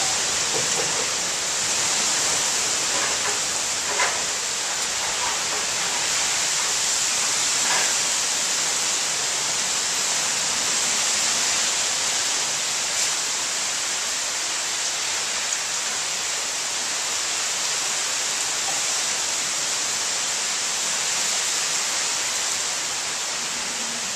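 Heavy rain pouring steadily onto leaves and a garden in a severe storm, with a couple of sharper drip taps about four and eight seconds in.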